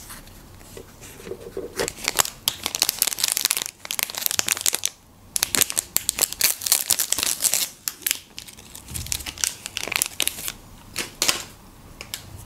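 Crinkling plastic wrapper being torn open and peeled off a marshmallow treat shaped like an ice-cream bar. The crackling comes in spells, with a short pause about halfway through.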